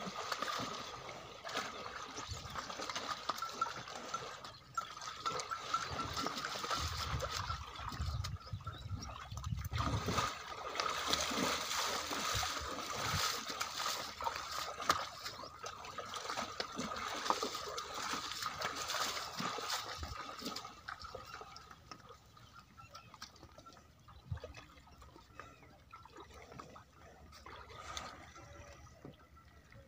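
Water buffaloes wading through a shallow muddy pond, the water splashing and sloshing irregularly around their legs, busiest for the first twenty seconds and quieter after. A faint steady tone runs underneath.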